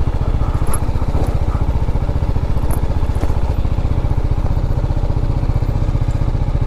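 TVS Apache RR310's single-cylinder engine running steadily while the bike rides over a rough dirt track. A few short clicks and knocks come from the bike over the stones.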